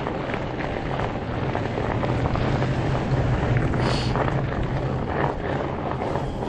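Riding noise from a fat bike: wind buffeting the microphone over the rumble of wide tyres rolling on wet, icy pavement and crusted snow, with a steady low hum. A brief high squeak about four seconds in.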